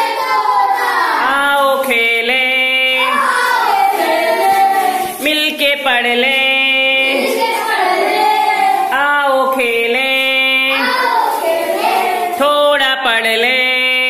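A group of children singing a song together in unison, with held notes that rise and fall.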